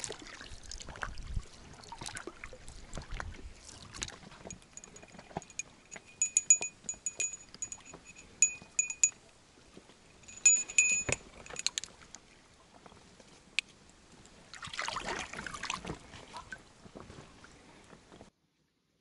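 Small brass bite-alarm bell on a fishing set line jingling in quick light rings, in a longer spell and then a short one, amid knocks and handling noises. A rustling burst follows later.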